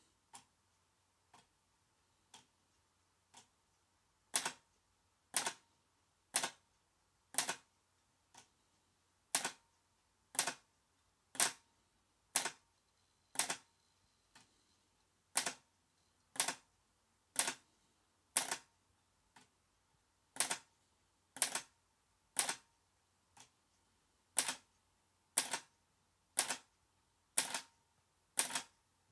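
TRS-80 four-pen printer clicking about once a second as it prints a test file, slower than its rated 12 characters a second. The clicks are faint for the first few seconds, then much louder.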